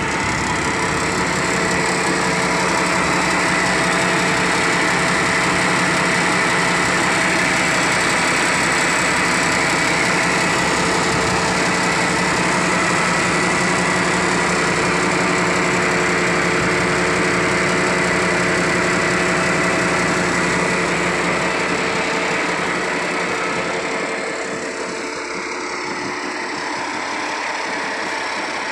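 Diesel engine of a tracked earthmoving machine running steadily close by, with a held whine over the engine note. It grows a little quieter about twenty-two seconds in.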